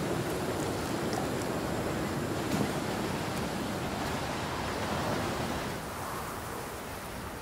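Wind gusting across the microphone, a steady rushing noise that becomes a little quieter about six seconds in.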